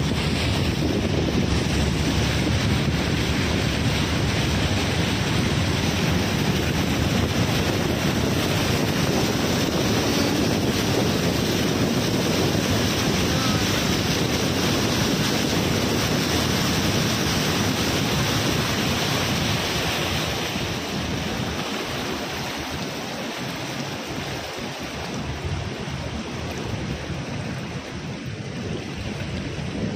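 Rainstorm noise: heavy rain and floodwater rushing, with wind buffeting the microphone, a steady roar that drops somewhat about twenty seconds in.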